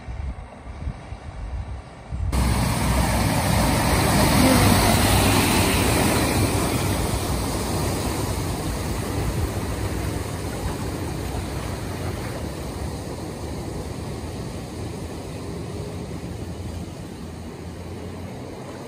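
Heavy work vehicle pushing through deep floodwater: low engine rumble under a loud rush and splash of water. It starts abruptly about two seconds in, is loudest a few seconds later, then fades slowly as the vehicle moves away.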